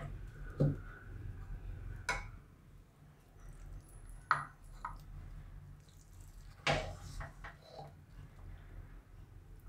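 A steel spoon scrapes and knocks against a cooking pan and a serving bowl as cooked vegetable mixture is spooned out, with a handful of sharp clinks: about half a second in, around two seconds, around four seconds and near seven seconds. A low steady hum runs underneath.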